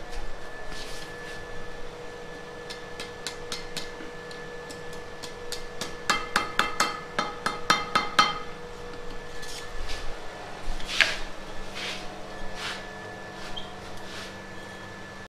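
Hand hammer striking red-hot steel on an anvil: spaced blows, then a quick run of ringing strikes from about six to eight seconds in, and a few scattered blows after. A steady hum runs underneath.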